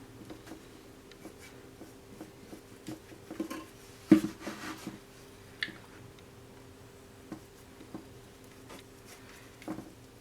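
Soft taps and scrapes of a paintbrush working acrylic paint, with a louder knock about four seconds in, over a faint steady hum.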